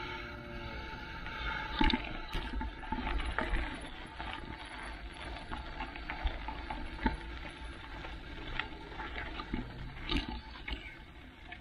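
A mountain bike riding over rough, dry lakebed ground: a steady rushing noise with irregular knocks and rattles as it bumps along, a few sharper clunks standing out.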